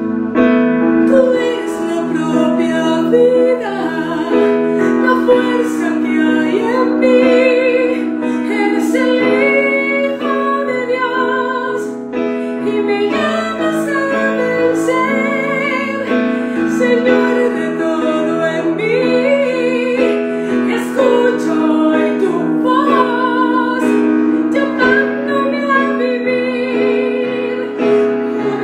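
A woman singing a worship song with vibrato over sustained keyboard chords.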